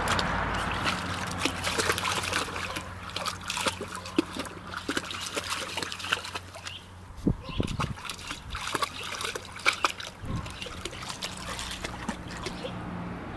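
Rough collie puppies pawing and wading in water in a plastic paddling pool: irregular splashing and trickling, with a few louder splashes around the middle.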